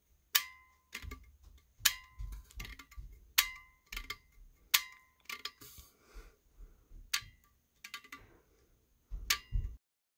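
3D-printed flip lid on a water bottle being clicked open and shut by hand: repeated sharp plastic clicks, the loudest about every second and a half with softer knocks between, several with a brief ring. The clicking stops abruptly near the end.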